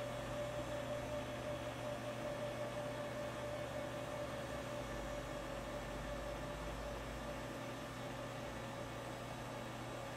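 Steady background hum and hiss with a faint steady whine; no distinct events.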